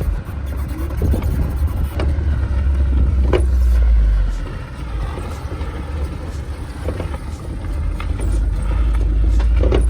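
A 2022 Mahindra Thar petrol 4x4 driving off-road on a mud track: a steady low rumble that builds for the first few seconds, eases about halfway, and builds again near the end, with occasional short knocks.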